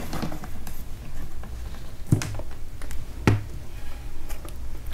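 Plastic clicks and taps from handling and prying a laptop's plastic bottom cover, with two sharper clicks about two and three seconds in.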